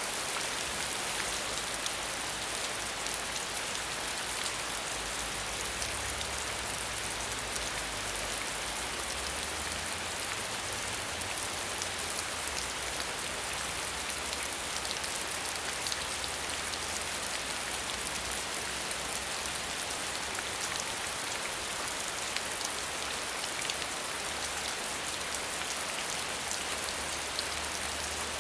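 Steady rain falling, an even hiss of rainfall with many fine, closely spaced drop ticks, unchanging throughout.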